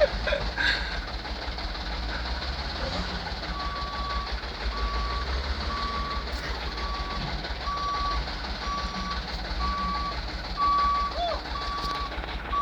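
Vehicle reversing alarm beeping, one steady tone repeating a little under once a second, starting a few seconds in, over a steady hiss and low rumble.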